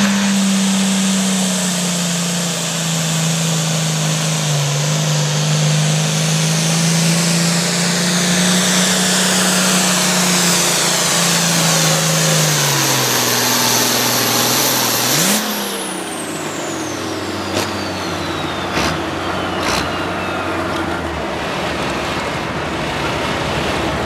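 International 1086 pulling tractor's 466 cubic inch turbocharged diesel at full throttle dragging the sled, its pitch slowly sagging as the load builds, with a high turbo whine over it. About fifteen seconds in the throttle is cut: the engine blips, the turbo whine sweeps down, and the engine drops to a lower steady run, with a few sharp clicks.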